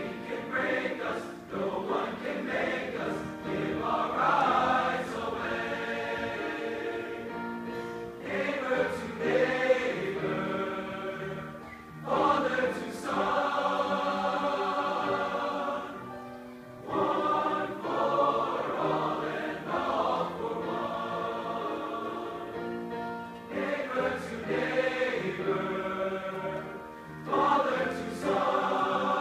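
Large men's choir singing, many voices together in sustained phrases with brief breaks between them.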